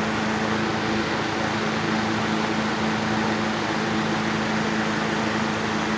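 Vintage 1970s Toastmaster 15-inch box fan running steadily on high speed: an even rush of air over a steady motor hum. It is a fan that runs with some vibration.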